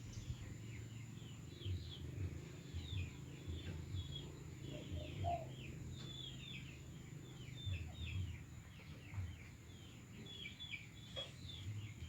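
Small birds chirping continuously in quick series of short downward-sliding chirps, with low muffled bumps on the microphone now and then.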